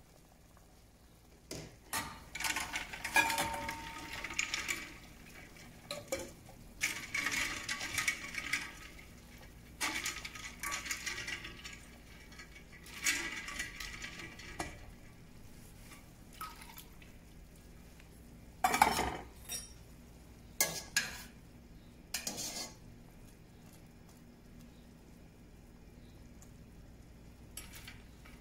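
Cauliflower florets being handled into a stainless pot of ice water: four bursts of ice cubes clinking and water sloshing, then three sharp clinks of stainless steel cookware.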